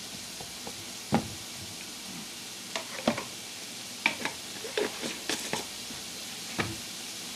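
Minced garlic frying in oil in a nonstick pan, a steady sizzle while it is browned. Over it come a handful of sharp knocks and clicks from the spatula and kitchen handling, the loudest about a second in and a cluster in the middle.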